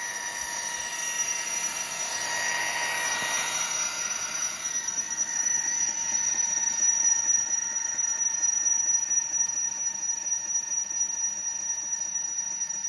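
Line boring machine's electric drive motor running with a steady high whine while the boring bar cuts a pin hole in a steel excavator bracket; a rougher cutting hiss swells and fades a few seconds in.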